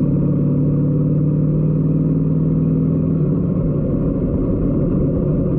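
Motorcycle engine running at road speed, heard dull and muffled. Its note drops a little about three seconds in.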